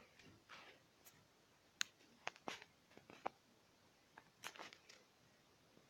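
Near silence: quiet room tone with a few faint, short clicks and soft rustles.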